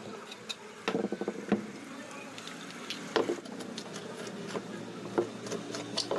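Sharp clicks and taps of metal parts and tools during a ceiling fan bearing change, with a quick rattling run about a second in and single knocks after it, over a faint steady hum.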